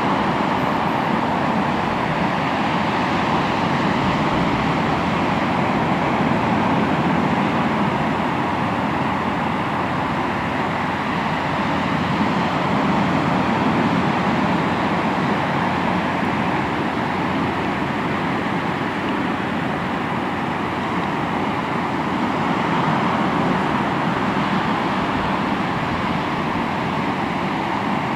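Sea waves breaking and washing on the shore: a continuous rushing wash that swells and eases slowly.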